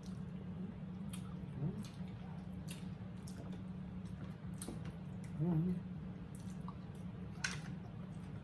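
Wet chewing and lip-smacking while eating roasted pork neckbones, heard as scattered sharp smacks and clicks, with a short voiced sound about five and a half seconds in.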